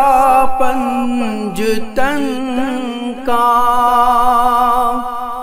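Male voice singing an Urdu dua unaccompanied, in a slow, drawn-out devotional style. From about three seconds in, one long steady note is held and fades near the end.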